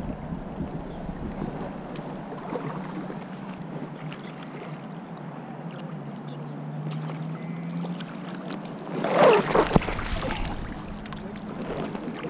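Moving water and wind with a steady low drone underneath, then a loud splash about nine seconds in as a hooked flathead grey mullet thrashes at the surface while it is played on a tenkara rod.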